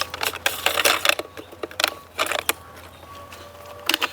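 Plastic parts of a Kreepy Krauly Kruiser suction pool cleaner clicking, knocking and rattling as it is handled and opened by hand, with a run of clicks in the first two and a half seconds and more near the end.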